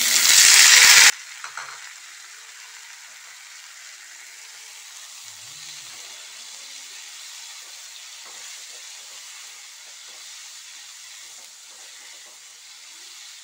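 Chopped tomatoes going into hot oil and onions in a kadai: a loud sizzle that cuts off suddenly about a second in, then a soft, steady frying hiss as a wooden spatula stirs the pan.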